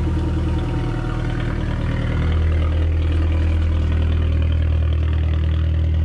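Car engine running at low revs with a deep steady hum as the car pulls slowly away, growing a little louder about two seconds in.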